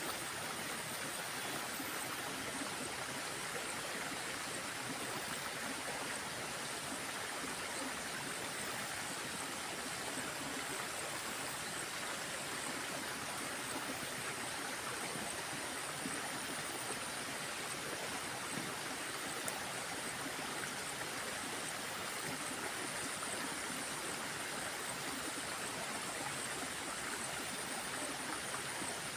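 Water of a small stream running steadily, an even rushing with no breaks.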